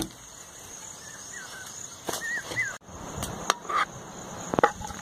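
Insects shrilling steadily outdoors, with a few short chirps in the middle. In the second half a metal ladle clinks and scrapes several times against the pan of chicken masala.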